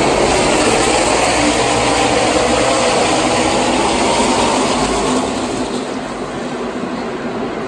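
A pack of NASCAR Xfinity Series stock cars racing past at speed, their V8 engines blending into one loud, dense drone. It eases a little about five and a half seconds in as the pack moves away into the turn.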